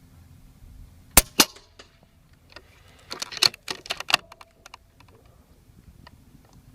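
Air Venturi Avenger .25 PCP air rifle with its stock end cap firing one shot: two sharp cracks about a fifth of a second apart. About two seconds later comes a quick run of mechanical clicks and clacks.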